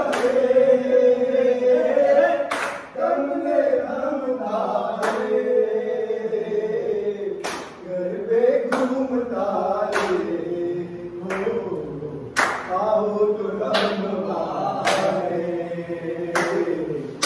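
A group of men singing a garba song to the mother goddess unaccompanied, with sharp hand claps from the dancers every couple of seconds, coming faster in the second half.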